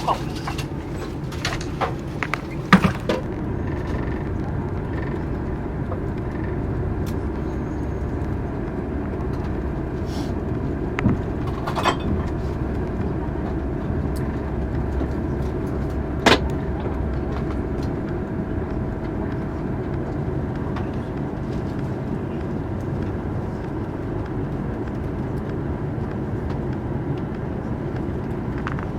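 Steady low rumble of a TGV Lyria train, with a few sharp knocks and clicks standing out above it.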